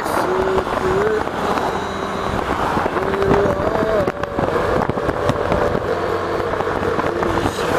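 Wind buffeting and crackling on the microphone of a moving motorcycle, with the bike's engine running underneath.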